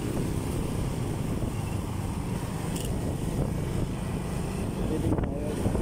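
Motorcycle riding in traffic: a steady rumble of engine, road and wind noise on the handlebar-mounted microphone.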